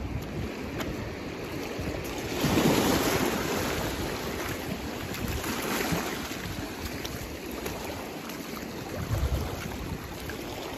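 Small sea waves washing over a shallow rocky reef flat, swelling up about two seconds in and again near six seconds, with wind rumbling on the microphone.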